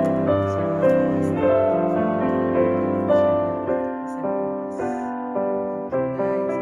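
Background piano music, notes changing steadily throughout.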